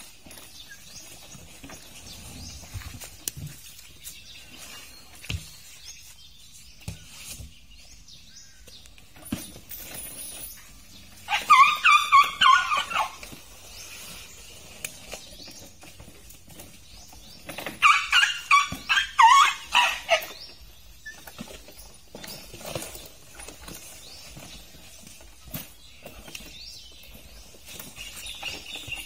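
Young Asian elephant squeaking happily in two bursts of rapid, high-pitched squeaks, the first about eleven seconds in and the second about six seconds later. Light thumps and scuffs are heard in between.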